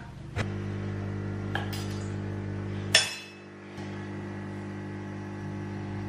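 A table knife clinking against a plate while cutting cherry tomatoes: a few light clicks, the sharpest a ringing clink about three seconds in. A steady low hum runs underneath from just after the start.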